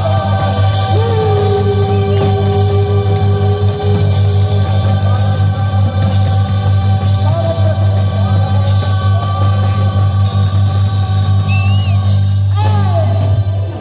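Live band with electric guitar and bass holding the closing chord of a pop song, with a singer's long held note about a second in; the chord cuts off sharply near the end.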